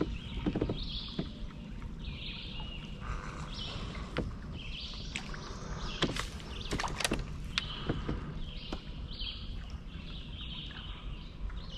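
A songbird singing a series of short, repeated phrases over the steady low rush of river water around a kayak, with a few sharp clicks and knocks near the middle.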